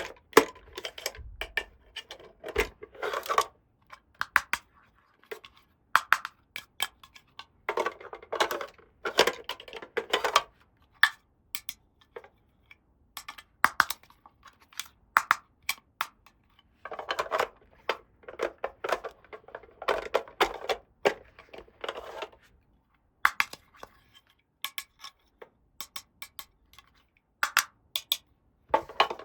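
Small plastic toy pieces clicking and clattering as they are handled and set down, in irregular taps with a few longer stretches of rapid scraping and rattling.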